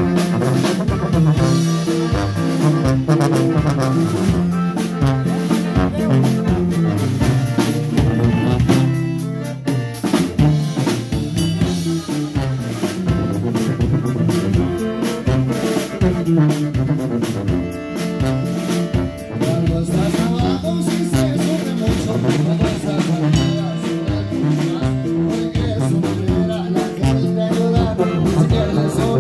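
Live norteño band playing an instrumental passage: a tuba carries the bass line under a bajo sexto, a button accordion and a drum kit keeping a steady beat. The music drops away briefly about nine seconds in, then picks up again.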